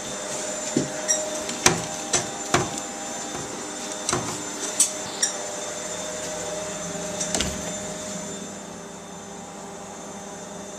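Zanussi washing machine running with its door open, a steady motor hum under a string of sharp knocks and clatters from the drum for the first seven seconds or so. The hum drops a little in level near the end.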